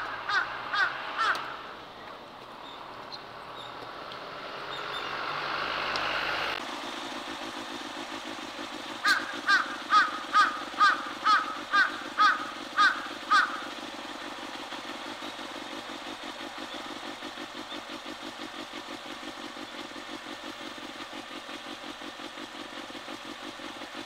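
Large-billed crow giving a quick run of about ten evenly spaced caws, which the recordist guesses is a lookout's call handing over watch before it starts feeding; a few caws from its alarm call come right at the start. From about six seconds in, a steady, finely pulsing engine hum runs under the calls.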